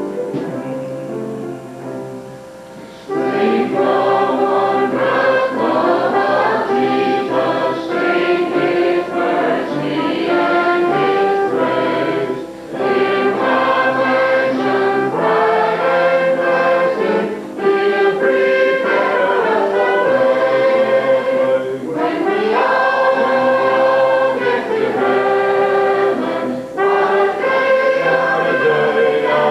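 Church congregation singing a hymn together with instrumental accompaniment. A soft instrumental introduction gives way to full singing about three seconds in.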